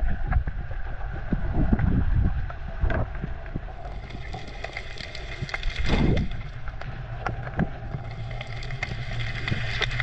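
Underwater sound picked up by a camera beneath the sea surface: a low rumble of moving water as the diver swims and reaches along the seabed, with scattered clicks and crackles and a louder surge of water about six seconds in.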